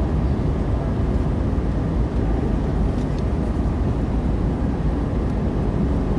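Passenger airliner cabin in flight: a steady low drone of engine and airflow noise.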